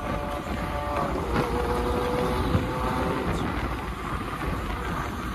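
Car running at highway speed, heard from inside the cabin: steady engine, tyre and wind noise, with an engine tone that fades out about a second in.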